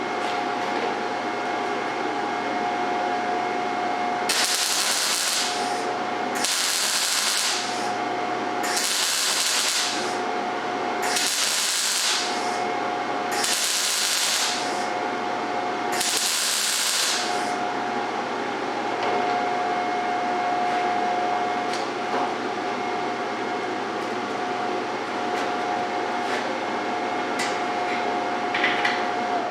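MIG welder arc firing in six short bursts of about a second each, like a run of spot welds, sizzling and hissing. A steady hum with a constant whine runs underneath.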